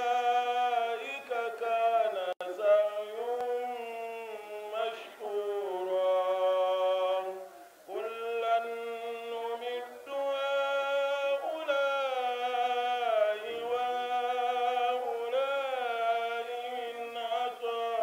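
A man's solo unaccompanied chanting: long held notes that bend and turn in pitch, with brief pauses for breath.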